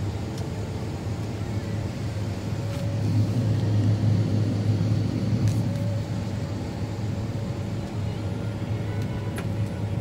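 John Deere S780 combine running, a steady low drone heard from inside the cab, while its unloading auger is engaged and pouring soybeans into a grain trailer.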